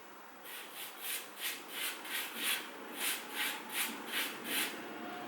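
Rhythmic back-and-forth rubbing strokes on a wooden surface, about three a second, hand work on a kitchen cabinet, stopping near the end.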